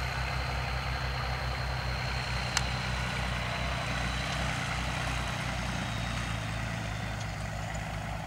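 An engine idling steadily with a low, pulsing throb, and one sharp click about two and a half seconds in.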